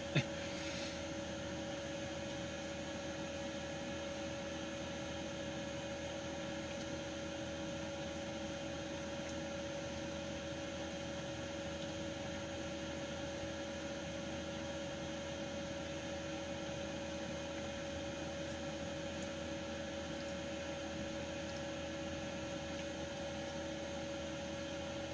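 A steady hum with two faint steady tones over an even hiss, unchanging throughout.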